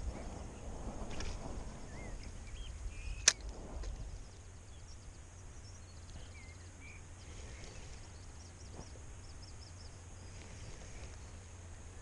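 Small birds chirping now and then over a low rumble of wind and handling on the microphone while a light spinning rod is cast. One sharp click comes about three seconds in, and the rumble drops away about a second later.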